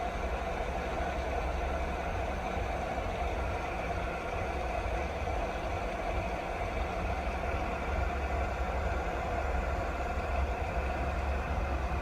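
Steady, continuous rain noise with a deep low rumble under it.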